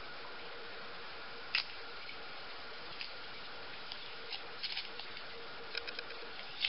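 Scattered short clicks and crinkles of a small packaging pouch being handled and opened by hand, over a steady background hiss with a faint hum.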